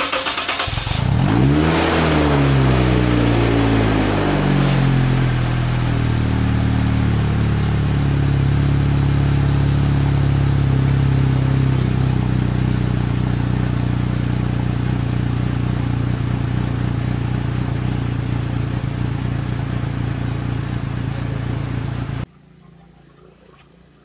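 Honda Jazz GE8 car engine, a 1.5-litre four-cylinder, running in the nose of a homebuilt STOL aircraft. It revs up sharply about a second in, drops back over the next few seconds and settles into a steady run. The sound cuts off abruptly near the end.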